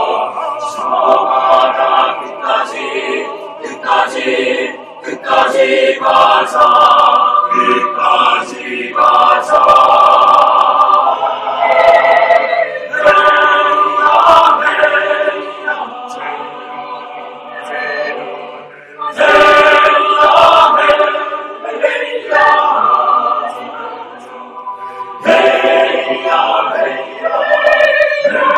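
Mixed choir singing a Korean choral song with a small string ensemble and piano, in phrases that swell and fall back, softening twice in the second half before rising again.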